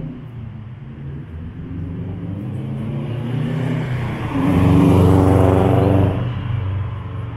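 A motor vehicle's engine passes close by. It builds up, is loudest from about four and a half to six seconds in, then eases off.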